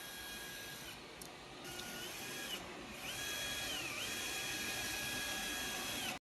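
Electric drill motor whining in several runs, stopping and restarting, with its pitch dipping once and recovering as the bit loads up. The drill is struggling and can't bore through.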